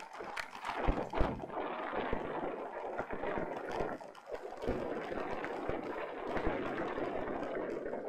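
Mountain bike riding over a rough trail: steady rushing tyre and air noise with frequent knocks and rattles from the bike over bumps.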